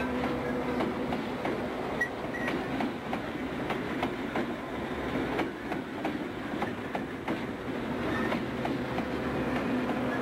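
Southern Pacific diesel locomotives passing at close range, their engines running steadily, with wheels clicking over rail joints.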